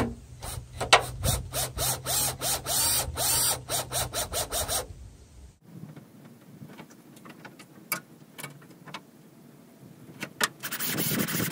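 Cordless drill/driver running a screw into a threaded rivnut in a quick series of short trigger pulses for about four seconds, the motor winding up and down with each pulse. After a quieter stretch with a few light clicks, the drill runs again briefly near the end.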